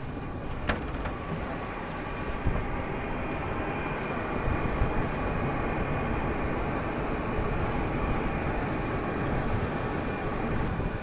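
Steady rushing rumble with a faint high whine beside a parked Airbus A320 on an airport apron, with one sharp click just under a second in.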